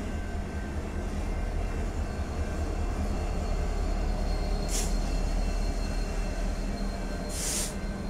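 Train rolling past with a heavy, steady low rumble of wheels on rail. Two short sharp hisses come about four and a half seconds and seven and a half seconds in.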